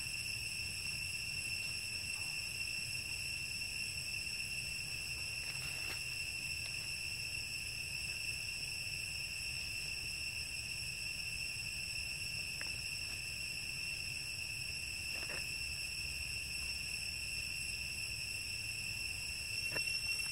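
Steady insect drone in the forest: one unbroken high-pitched whine with overtones. It runs over a low rumble, with a few faint brief sounds scattered through it.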